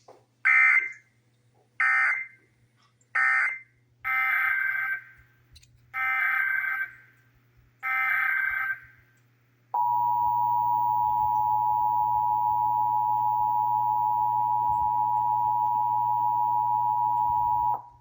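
Emergency Alert System SAME data bursts: three short bursts, the end-of-message code closing the previous test, then three longer header bursts of warbling digital tones. About ten seconds in, the EAS attention signal follows: a steady 853 and 960 Hz two-tone held for about eight seconds.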